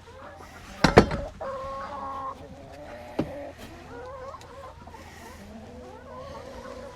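Domestic hens clucking and calling, with one drawn-out call just after a sharp knock about a second in.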